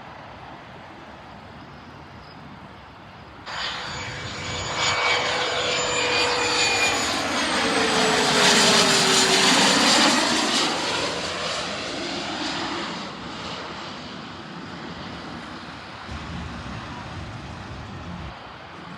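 A fixed-wing aircraft flying past: engine noise with a whine that builds to its loudest about halfway through, drops in pitch as it passes, then fades away.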